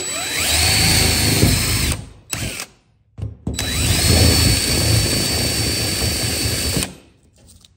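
DeWalt 20V MAX cordless drill drilling a hole in a sheet-metal body panel. It runs twice: each time the motor whines up to speed and holds a steady pitch, first for about two seconds and then, after a short blip of the trigger, for about three seconds.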